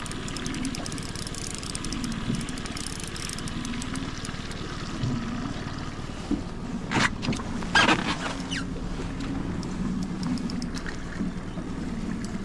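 Small boat engine ticking over at trolling speed, a steady low hum under wind and lapping water. A spinning reel is wound in with fine ticking in the first few seconds, and there are two short sharp sounds about seven and eight seconds in.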